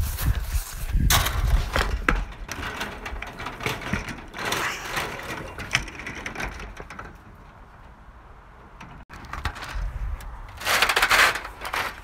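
Knocks, scrapes and footsteps of a person climbing and scrambling over a backyard obstacle course, mixed with the rubbing and bumping of a hand-held phone. Quieter for a few seconds past the middle, then a louder rush of noise near the end.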